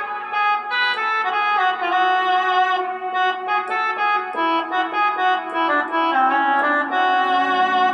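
Roland XPS-10 synthesizer keyboard playing a melody in a sustained, organ-like reed tone, the notes held and overlapping.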